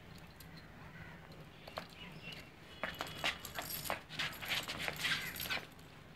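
Metal chain leash jingling and rattling as a dog tugs and moves about on it. A few clinks come in the first half, and it turns into busy, continuous rattling from about halfway through.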